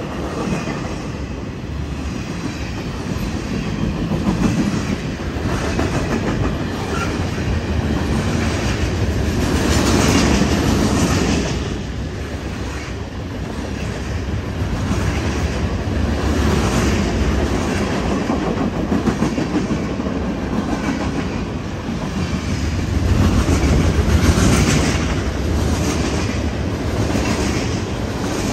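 BNSF freight train's cars, lumber-loaded flatcars, rolling past at speed: a continuous rumble of wheels on rail with repeated clacks as the wheels cross rail joints, swelling louder twice as heavier cars go by.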